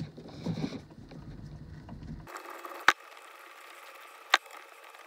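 A screwdriver working the screws on the face of a twist-lock plug, with handling rustle and two sharp clicks about a second and a half apart in the second half.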